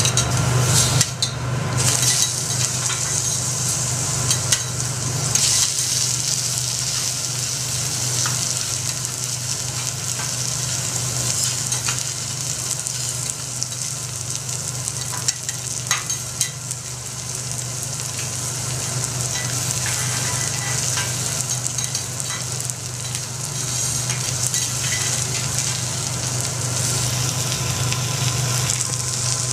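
Lobster and its tomalley sizzling on a hot teppanyaki steel griddle: a steady high hiss, with now and then a click or scrape of metal spatulas on the plate. A steady low hum runs underneath.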